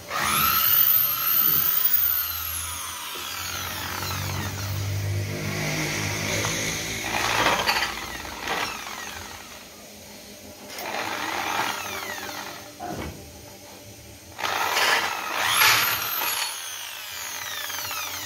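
Corded electric drill boring into a metal patch plate on a chainsaw crankcase. The motor spins up with a high whine and coasts down at the start, cuts through the metal in stretches through the middle, then spins up and coasts down again near the end.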